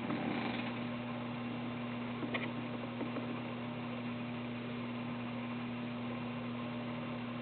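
Steady electrical hum with room hiss during a pause between a sleeping man's snores. The tail of a snore fades out in the first half second.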